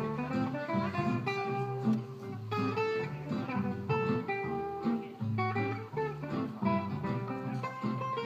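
Small acoustic band playing a tune live: strummed acoustic guitar over a walking upright bass, with violin.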